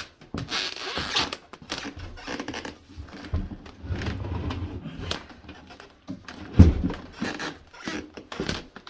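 A wooden bathroom vanity cabinet being slid back into place, scraping and rubbing across the floor with a few knocks, while the floor squeaks underfoot.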